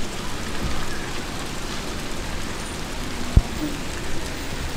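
Steady rushing hiss of background noise, with a single short low thump about three and a half seconds in.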